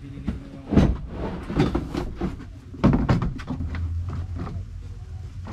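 Knocks and clatter of a hard plastic carry case being set down and handled on a pickup truck's plastic tailgate bed liner, with sharp thuds about a second in and again near three seconds in.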